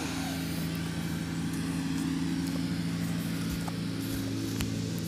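A steady low hum made of several held pitches, like an engine running, over an even haze of outdoor noise, with a few light knocks.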